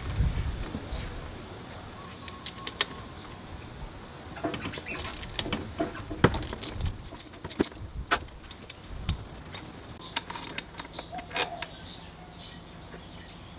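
Irregular clicks and metallic clinks of hand tools and parts being handled while working on a scooter's front end, with no steady rhythm.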